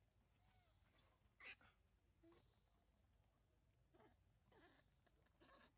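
Faint outdoor ambience: a high chirp that slides downward repeats about every second and a half, with a sharp click about a second and a half in and a few soft rustles near the end.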